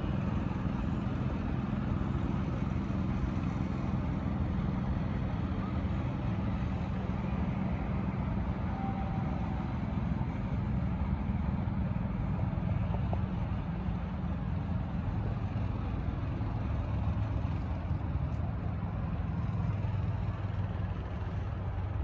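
Steady low drone of a miniature railway locomotive's diesel engine running, its lower note growing stronger in the second half.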